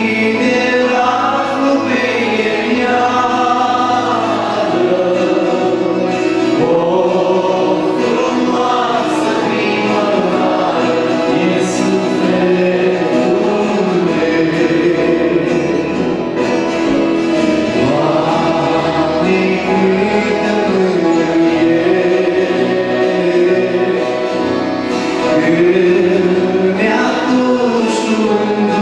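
A Christian song is being sung with music behind it, in long rising and falling phrases that carry on without a break.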